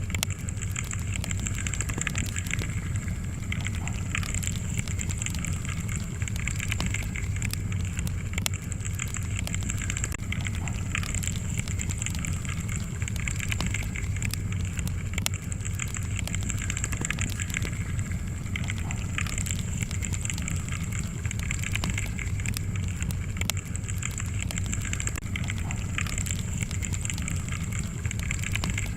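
Wood fire burning in a fireplace: a steady low rumble and hiss with frequent small, sharp crackles and pops from the burning logs.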